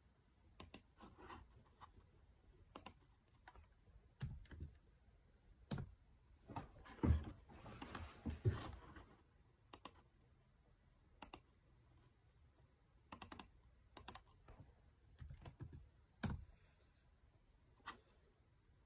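Scattered, faint clicks of a computer mouse and keyboard, with a denser run of clicks, knocks and rustling about halfway through.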